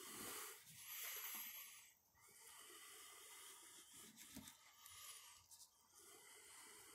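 Near silence: faint breathing close to the microphone in spells, with a couple of soft knocks from handling the knife and paw about four to five seconds in.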